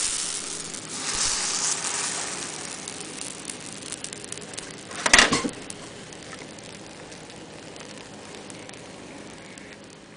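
Pancake batter sizzling in a hot nonstick frying pan, loudest at the start as the pancake is turned over and again a second or so later. A sharp clatter comes about five seconds in, then a steady quieter sizzle that fades near the end.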